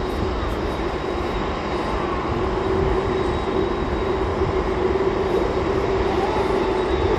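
Airbus A380's four turbofan engines running at low thrust as the airliner taxis slowly, a steady rumble with a constant whine on top. The whine grows stronger a few seconds in, and a higher tone rises near the end.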